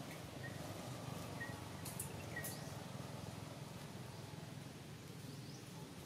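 Faint outdoor ambience: a steady low background hum, with a few brief high chirps in the first couple of seconds and two short rustling clicks around two seconds in.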